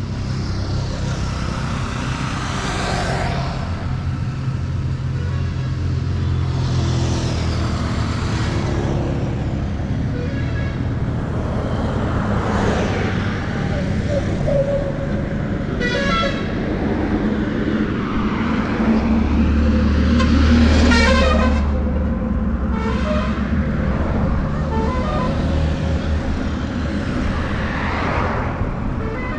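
Road traffic: engines running and vehicles passing one after another every few seconds, with a few short horn toots in the second half.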